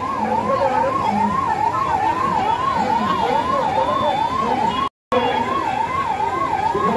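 Ambulance siren sounding a fast warble, rising and falling about two and a half times a second. The sound cuts out for a moment about five seconds in.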